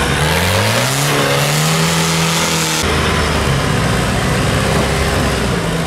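A vehicle engine revs up over about two seconds and holds a steady high note. About three seconds in the sound changes abruptly to an engine running steadily at a lower pitch.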